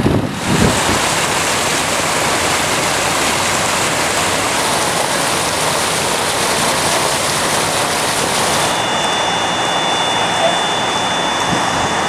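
Floodwater from a broken water main rushing through a street: a steady, even rushing noise. About nine seconds in it turns duller, and two faint steady high tones come in.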